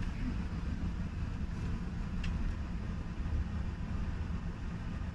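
Steady low rumble inside a passenger car of a Deutsche Bahn ICE 4 high-speed train, with a faint click about two seconds in.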